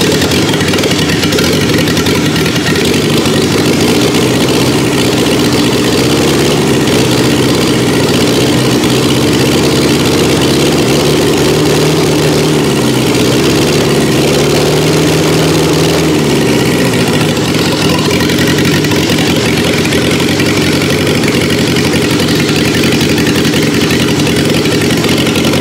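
Petrol engine converted to diesel, with raised compression and a diesel injection pump, running on diesel fuel. It runs steadily on the stand, its speed wavering a little midway, and it gives off heavy exhaust smoke.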